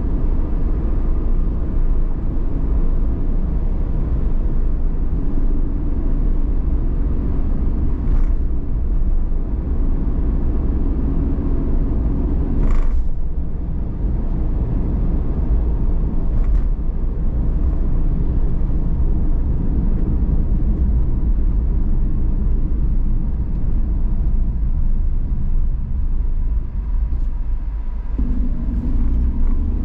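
Car driving on city streets: a steady low rumble of engine and tyre noise, with a few short clicks or knocks, the loudest about thirteen seconds in. Near the end the engine note rises as the car pulls away.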